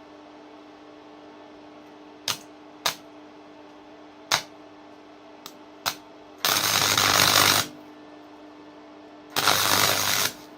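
Electric welder striking short tack arcs, four quick crackling snaps, then laying two arc bursts of about a second each that start and stop abruptly, over a steady hum.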